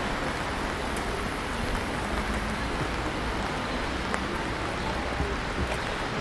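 Steady rain falling, an even hiss with a few scattered drip ticks.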